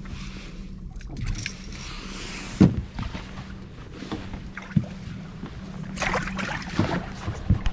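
Boat motor running steadily at trolling speed, with a few sharp knocks (the loudest about two and a half seconds in) and a burst of handling noise around six seconds in as a walleye is put into the fish box.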